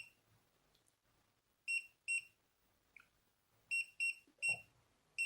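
Smart lock touch keypad beeping once for each digit pressed while a passcode is entered: about six short, identical high beeps in irregular groups.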